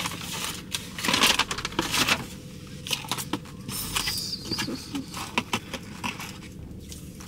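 Paper takeout bag rustling and a cardboard burger clamshell being handled and opened: a dense run of crinkles and crackles in the first couple of seconds, then scattered light clicks and rustles.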